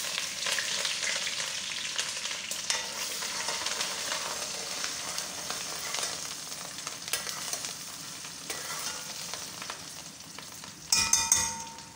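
Chopped onions sizzling in hot palm oil in a metal pot as they are stirred; the hissing starts hard and eases off gradually. Near the end comes a short cluster of ringing clinks, the spoon knocking against the pot, louder than the sizzle.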